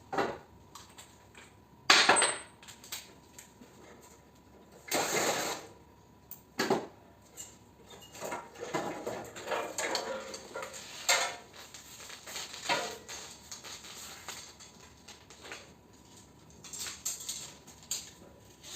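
Metal parts of a mini-split air conditioner being handled and pulled apart for scrap: irregular clanks, knocks and rattles with short scraping noises, the loudest knock about two seconds in.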